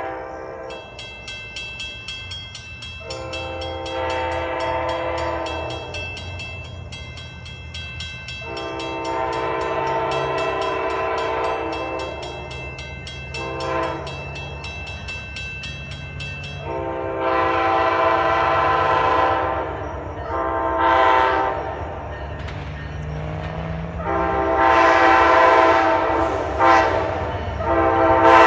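Amtrak passenger locomotive's horn sounding a series of long and short chord blasts as the train approaches, growing louder toward the end. A low rumble from the train runs underneath.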